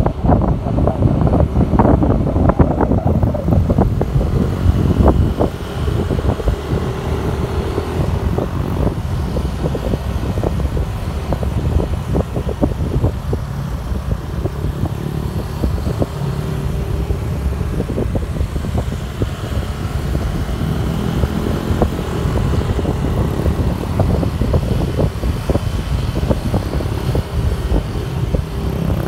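Wind buffeting the microphone on a moving motorcycle over the steady running of its engine, heaviest in the first few seconds.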